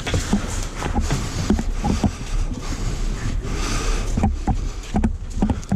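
A player on the move in airsoft close-quarters play: irregular footsteps and gear and clothing rustling, over a steady low rumble of handling noise on the body-worn camera's microphone.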